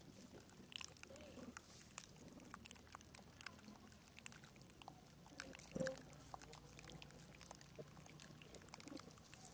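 Near silence: faint background ambience with scattered soft clicks and one brief, louder sound about six seconds in.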